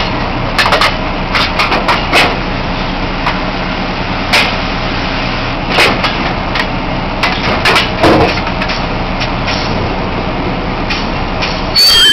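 Drilling rig machinery running steadily while drill pipe and rig-floor equipment clank and bang repeatedly as a pipe connection is made. A loud high-pitched squeal starts near the end.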